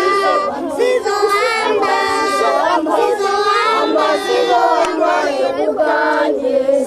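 A group of schoolchildren singing together as a choir.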